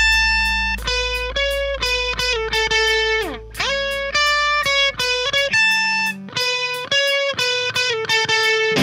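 Rock band playing an instrumental break: a distorted electric guitar picks a lead melody of quick, repeated notes over bass and drums, sliding down in pitch a little after three seconds in.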